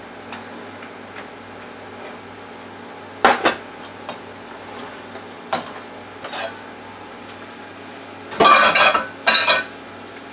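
A stainless steel saucepan and metal utensils clinking: a few separate sharp clinks, then a louder clatter of metal on metal in two bursts near the end.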